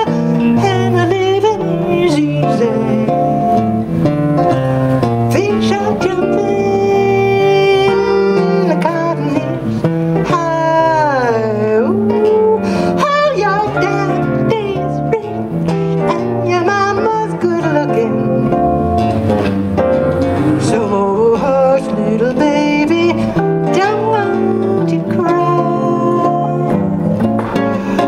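A woman singing a song into a microphone, accompanied by acoustic and electric guitars, amplified live.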